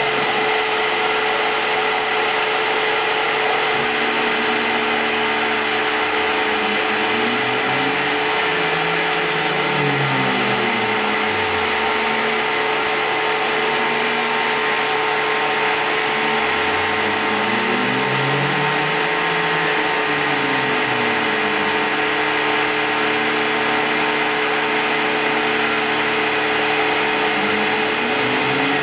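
Tormach CNC mill running a milling job: steady machine noise with a constant tone, and lower whines that glide up and down over and over from about four seconds in as the axis motors speed up and slow down.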